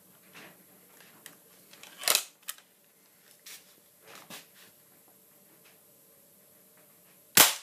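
.22 air rifle fired once at a hard drive, a single sharp crack near the end, after a few seconds of small mechanical clicks and a louder clack about two seconds in as the rifle is handled and readied. A faint steady hum runs underneath.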